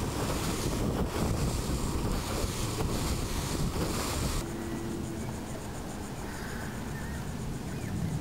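A rigid inflatable boat with a 40 hp Yamaha four-stroke outboard runs at speed. Wind buffets the microphone and the wake churns loudly. About four and a half seconds in, the sound drops suddenly to a quieter wash of wind and water, with the boat running farther off.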